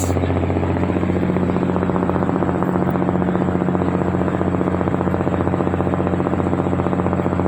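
Ferry's diesel engine running steadily: an even drone with a fast, regular throb.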